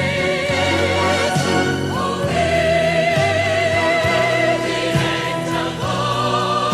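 Choir and orchestra performing a Christmas gospel arrangement: voices hold long notes with wide vibrato, moving to a new pitch every couple of seconds over sustained low bass notes.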